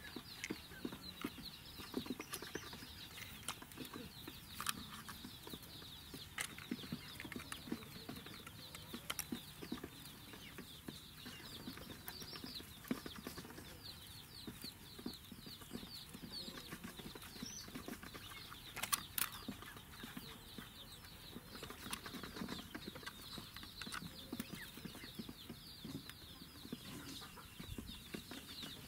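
Domestic chicks peeping continuously, many short high cheeps each dropping in pitch, with scattered light clicks and rustles of a plastic mesh net being handled.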